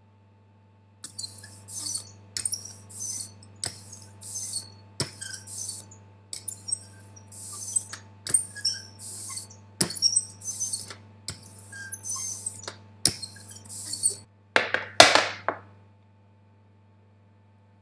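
Hand roller worked back and forth through a thin layer of liquid photo-emulsion on a metal etching plate: a quick run of short hissing strokes with sharp clicks between them. Near the end comes one louder, longer stroke that falls in pitch.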